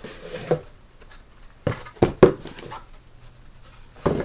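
Cardboard shipping box and packaging being handled: a short rustle, then a few sharp knocks and thumps about two seconds in and again near the end.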